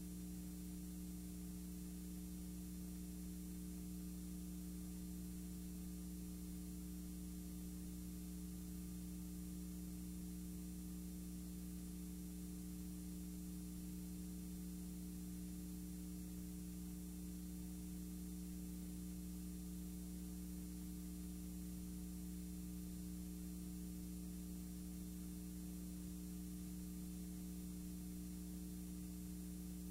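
Steady electrical mains hum with a faint hiss, unchanging throughout, and no programme sound.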